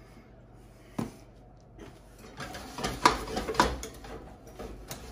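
A metal utensil knocking and scraping against a stainless steel pot as mashed potatoes are stirred, with a couple of sharp clanks past the middle. A single click comes about a second in.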